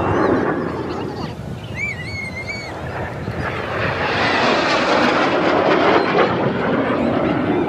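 Saudi Hawks' BAE Hawk jets flying past in formation, a broad jet noise that swells from about three seconds in and stays strong before easing near the end. A short warbling whistle sounds about two seconds in.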